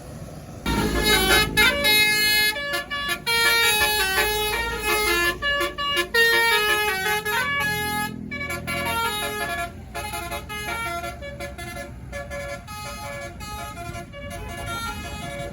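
Indonesian tour bus's telolet basuri multi-tone musical horn playing a fast melody of stepping notes. It starts under a second in, is loudest through the first half and carries on more softly after that.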